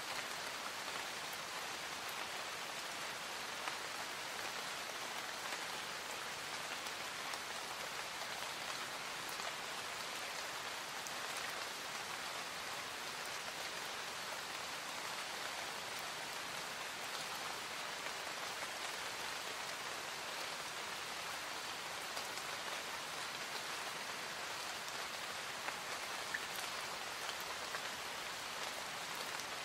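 Light rain falling in a forest: a soft, steady patter with no let-up, and a few slightly louder single drops here and there.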